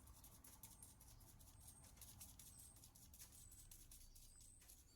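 Near silence: quiet room tone with light rustling and a faint, very high-pitched chirp that repeats about once a second.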